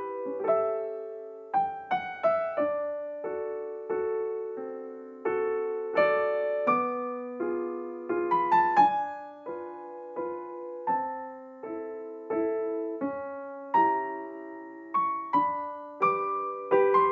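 Background piano music: a slow, gentle melody of single struck notes, each fading away before the next.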